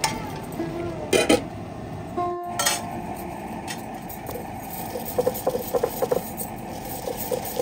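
Metal cookware clinking and scraping, with a few sharp knocks in the first three seconds and a run of quick, light clinks in the second half.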